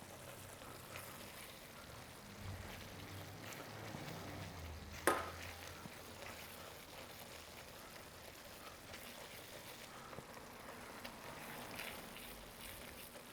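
Risotto simmering softly in a pan while being stirred, a faint sizzle with small scrapes and clicks. One sharp knock about five seconds in.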